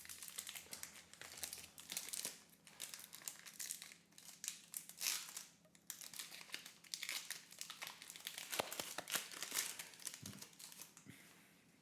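Foil wrapper of a Pokémon TCG Darkness Ablaze booster pack crinkling as it is torn open and handled, in irregular rustling spurts that die away near the end.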